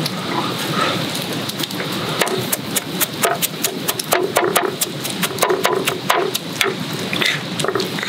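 Large Chinese-style cleaver chopping rapidly and repeatedly through meat and green onions onto a wooden cutting board, mincing them fine (chitatap). The knocks come several a second and settle into a steady rhythm about two seconds in.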